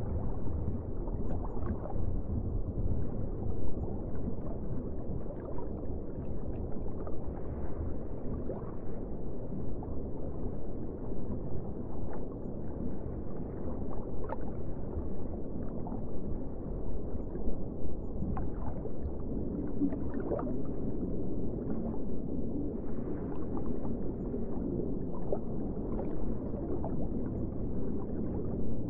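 Muffled underwater ambience: a steady low rush of water with faint bubbling gurgles scattered through it.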